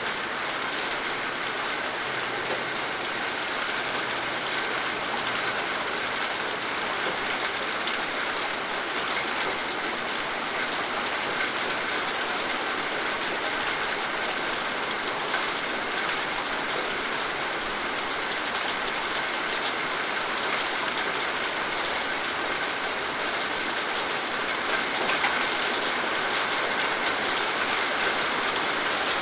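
Steady rain falling and pattering on surfaces, an even wash of noise with many small drop ticks.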